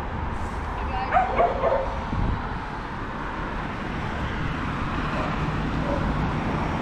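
Dogs barking and yipping a few times, about a second in, over a steady low rumble of street noise.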